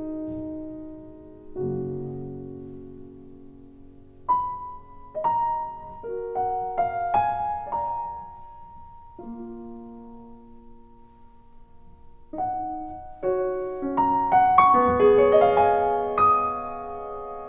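Slow, gentle solo piano music: single notes and soft chords that ring and fade, growing fuller near the end.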